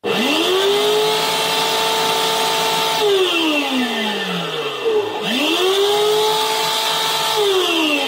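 POLTI Lecoaspira 705 AL washing vacuum cleaner's electric motor starting up with a loud hum, running steadily for about three seconds, then winding down with falling pitch; it starts and winds down a second time about five seconds in. The loud humming is the fault: the repairer thinks it more likely the motor's bearing.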